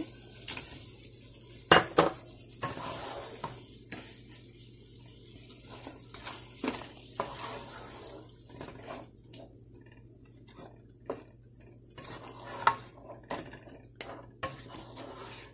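Chopped tomatoes tipped into a non-stick pot of mutton curry, then a spatula stirring through the thick gravy with repeated clacks and scrapes against the pot. The sharpest knocks come about two seconds in.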